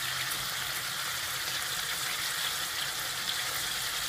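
Chicken kofta patties sizzling in a wok of shallow oil over a high gas flame: a steady frying hiss with faint crackles, as the water the meat has released cooks off.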